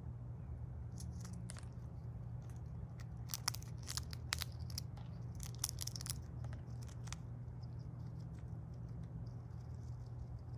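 Gray squirrel gnawing and cracking open a shell, a run of quick crunching clicks that is busiest in the middle and dies away near the end, over a steady low hum.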